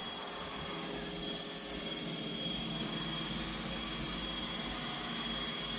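Robot vacuum cleaner running: a steady motor whir with a thin, steady high whine.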